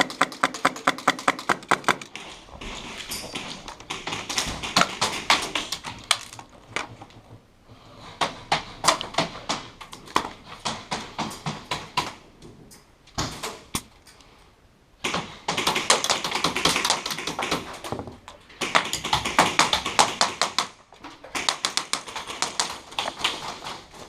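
Airsoft guns firing indoors: a quick, evenly spaced string of shots in the first two seconds, then irregular bursts of sharp clicks and pops with short pauses between them.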